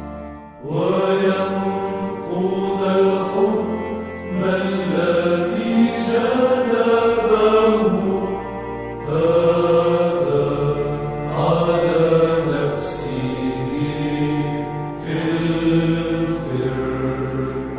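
Church hymn chanted in Arabic in Byzantine style: a sung melody line with long, ornamented notes over a low held drone that shifts pitch a few times.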